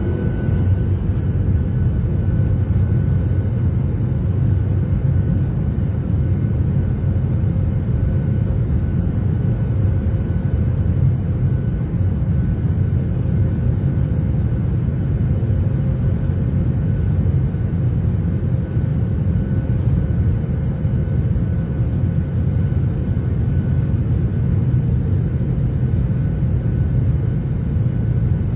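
Airliner cabin noise in flight: a steady low rumble of jet engines and airflow, with faint constant tones above it.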